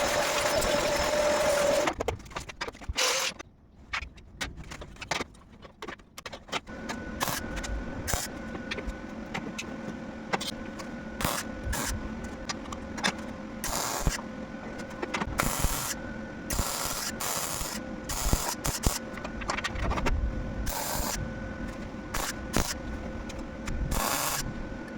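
Metalworking shop noise: a loud burst of a tool working metal for the first two seconds, scattered clicks and knocks, then from about seven seconds a steady machine hum with a rapid crackle and repeated louder pulses.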